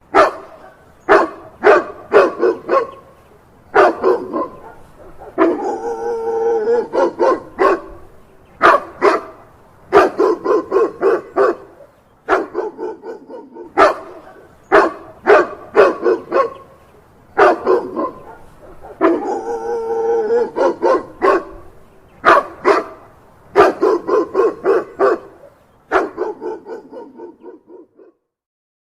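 Dog barking in quick runs of sharp barks, broken twice by a longer drawn-out stretch of sound; the same sequence plays through twice.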